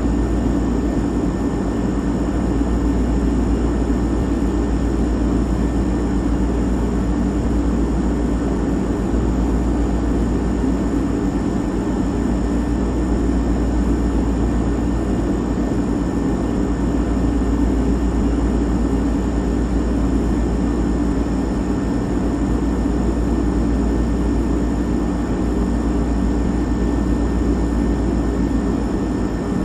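Refrigerator running: a steady, even hum, strongest down low, with a few faint constant whining tones above it.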